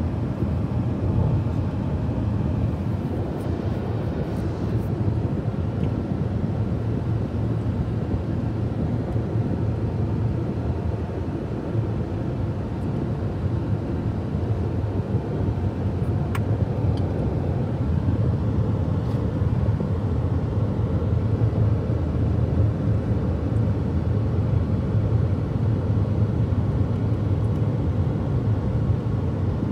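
Steady road noise inside a car cruising at highway speed: a constant low drone of tyres and engine.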